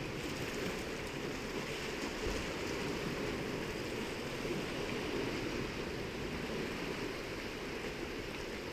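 Steady, even rushing of sea surf and wind, with no distinct events.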